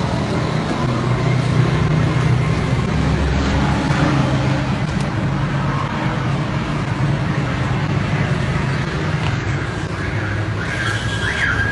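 Steady road traffic noise with vehicle engines running, and a brief high tone near the end.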